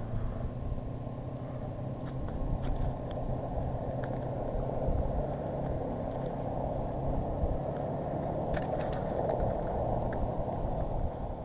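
Steady wind rumble on the camera microphone out on open lake ice, with a few faint clicks from an angler handling a perch and gear.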